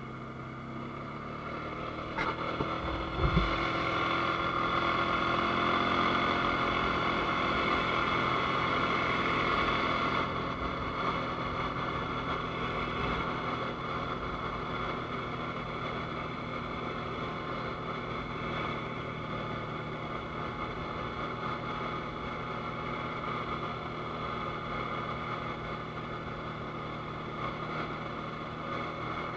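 ATV engine running while riding, its pitch rising over the first few seconds and then holding fairly steady. There is a short knock about two seconds in and a louder low thump a second later.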